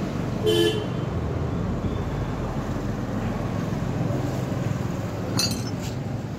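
Steady low rumble of street traffic, with a short high-pitched squeak or toot about half a second in and a few light metallic clicks near the end from a valve-puller tool being worked on a tubeless valve stem in a motorcycle rim.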